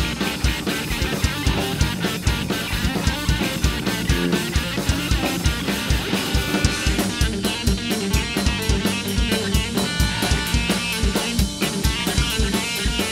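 A rock band playing live: a drum kit keeping a busy, steady beat on bass drum, snare and cymbals, under bass guitar and electric guitar.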